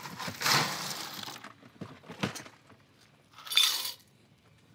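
Ice cubes scooped from a cooler and rattling into a cup: a long rattle about half a second in, a single knock, then a shorter rattle.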